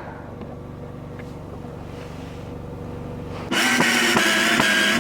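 A low steady hum, then about three and a half seconds in a power drill starts up and runs at a steady pitch, driving one of two long screws that hold a wall panel.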